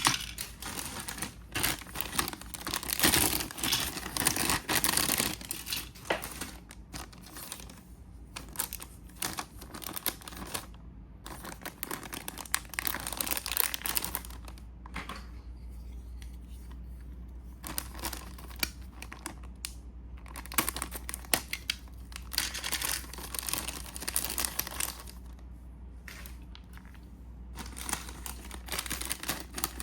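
Packaging being handled: plastic wrap and paper crinkling and tearing, dense for the first five seconds, then scattered rustles and small clicks.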